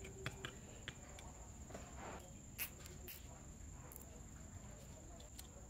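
Faint small clicks and taps of a screwdriver and wiring being handled in a metal drill handle housing, scattered irregularly, the sharpest about a quarter second and two and a half seconds in, over a steady high-pitched whine.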